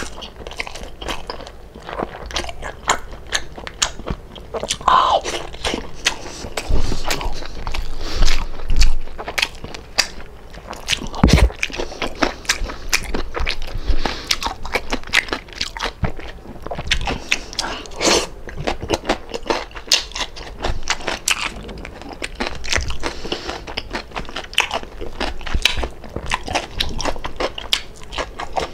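A person biting and chewing crispy lechon kawali (deep-fried pork belly), giving many crunchy, crackling bites and chews in quick, irregular succession. The loudest bites fall around the middle.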